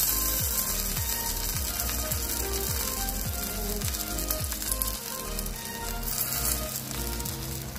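Sardines frying in coconut oil on a banana leaf in a clay pot over a low flame, a steady sizzle with background music playing softly under it.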